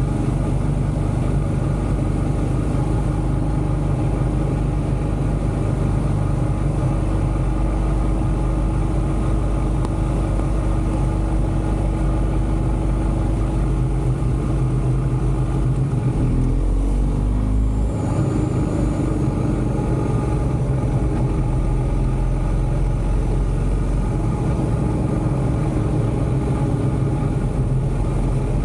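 Motorcycle engine running steadily at cruising speed, with wind rush. The engine note dips briefly about two-thirds of the way through, then settles again.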